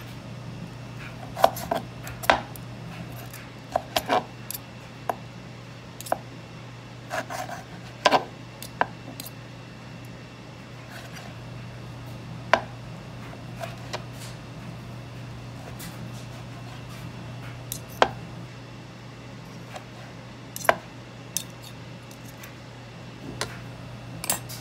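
Kitchen knife knocking on a cutting board in sharp, irregular clicks and knocks, with a few light clinks, over a steady low hum.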